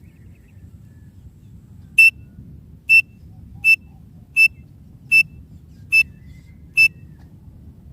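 Partridge (teetar, a francolin) call used as a lure: seven short, high whistled notes about three-quarters of a second apart, starting about two seconds in.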